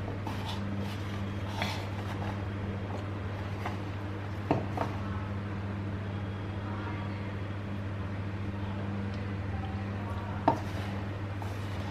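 Gloved hands mixing cut pointed gourd pieces with a damp rice-flour and besan coating in a bowl: soft rustling and a few faint clicks against the bowl, over a steady low hum.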